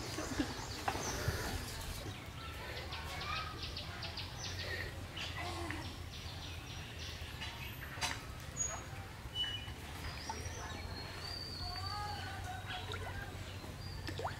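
Birds chirping and calling now and then in short notes over a steady low background hum, with one sharp click near the middle.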